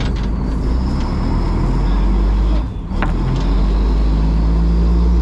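Fishing boat's engine running with a steady low hum, with a single sharp knock about three seconds in.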